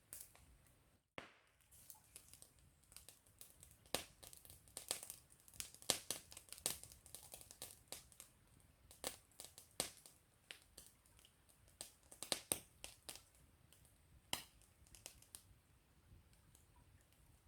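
Wood campfire crackling, with irregular sharp snaps and pops, thickest through the middle and thinning out near the end. The sound drops out briefly about a second in.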